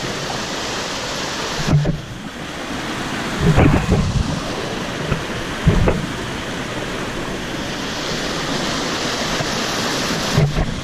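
Waterfall rushing: a steady, loud wash of falling water, broken by a few short low thumps.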